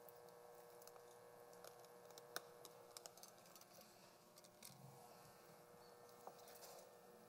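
Near silence: faint soft taps and light clicks as chopped clams are tipped from a plastic container into a steel pot of chowder and a wooden spoon stirs it, over a faint steady hum.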